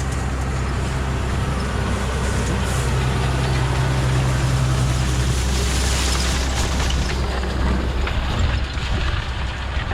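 Tractor pulling a round baler, its engine running steadily under load, the engine note swelling for a couple of seconds around the middle.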